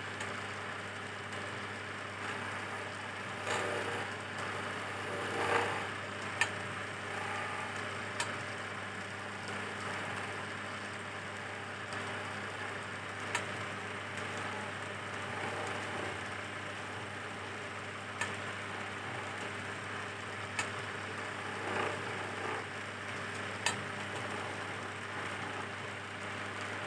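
Wood lathe running with a steady hum while a flat chisel cuts a spinning teak chess piece, giving short scraping bursts a few seconds in and again near the end. A handful of sharp ticks are scattered through it.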